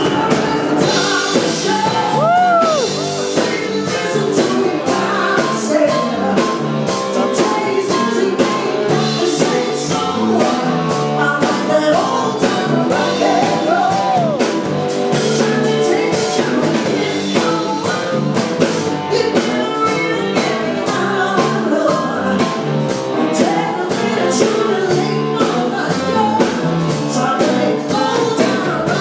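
Live rock band playing a song with a singer, electric guitar and drum kit keeping a steady beat.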